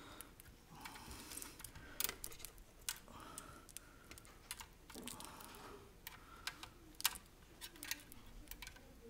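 Quiet, irregular small clicks and ticks of plastic and sheet metal as a very tight cable connector is worked and pried at with a thin blade to free it from the monitor's main-board shield.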